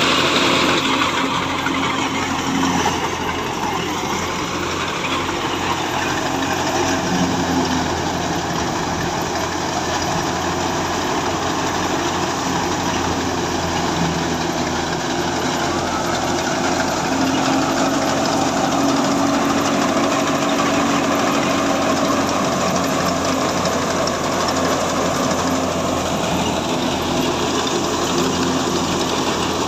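Belt-driven wheat thresher running steadily while wheat sheaves are fed into it, a continuous mechanical drone with the clatter of the threshing drum.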